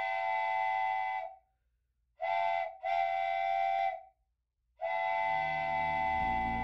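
Multi-chime train whistle sounding in separate blasts: a held blast that ends about a second in, a short toot, a longer blast, then another long blast starting near the end.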